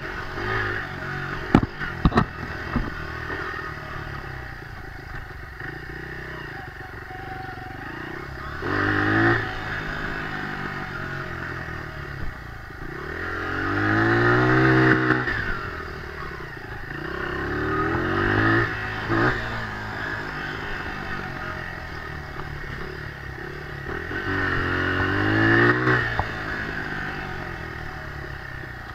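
Dirt bike engine revving up and easing off four times as the throttle is worked, the longest swell about halfway through. A few sharp knocks come about two seconds in.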